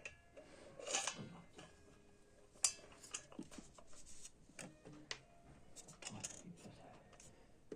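Scattered light metallic clicks and clinks from handling mixer grinder jar and blade parts, with a sharper clink about two and a half seconds in.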